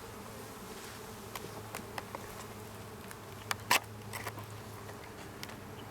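Honeybees buzzing steadily in a swarm around an open hive during a frame inspection, with a few sharp clicks, the loudest pair about three and a half seconds in.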